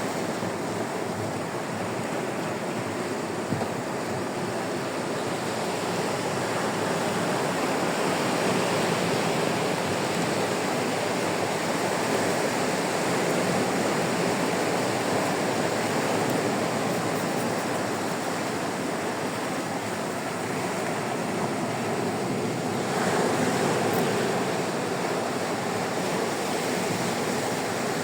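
Caspian Sea waves washing onto a sandy beach: a continuous surf wash that swells and eases gently, louder about a third of the way in and again near the end.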